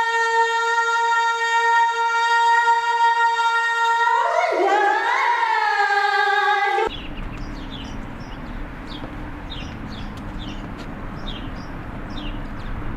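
A single sung note held steady for several seconds, then wavering up and down in pitch before cutting off abruptly about seven seconds in. After it comes quieter outdoor ambience with birds chirping.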